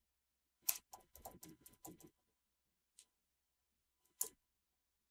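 Computer keyboard keystrokes, faint: a quick run of key presses typing a command about a second in, then a single tap, and one sharper keystroke near the end.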